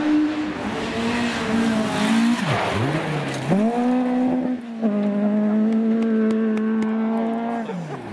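Rally car engine running hard at high revs on a gravel stage: the revs drop sharply once, as for a lift or braking into a corner, then climb again and hold high through a gear change before falling away near the end. A few sharp ticks are heard over it late on.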